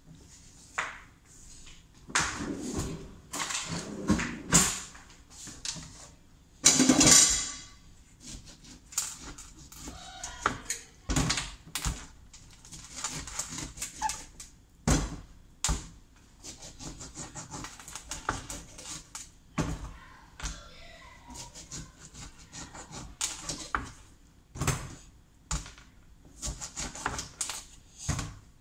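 Irregular knocks, taps and clatter as oranges and kitchen things are handled at a sink, with a louder short burst about seven seconds in.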